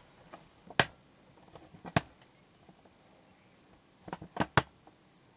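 A few short, sharp clicks and knocks against a quiet room: one just under a second in, another about two seconds in, and a quick cluster of three near the end.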